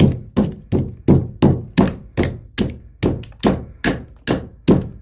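Hammer striking a pressure-treated lumber board in a steady run of blows, about three a second, knocking out the thin slivers of wood left between a series of half-inch-deep saw cuts to form a notch.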